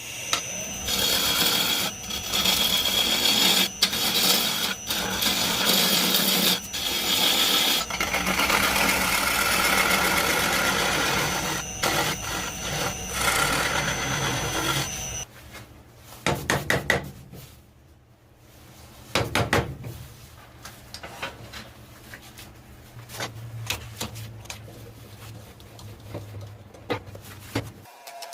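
Wood being worked with a tool. For about fifteen seconds there is a loud, steady rasping with a thin high whine. Then it stops, and quieter, short scraping and rubbing strokes follow.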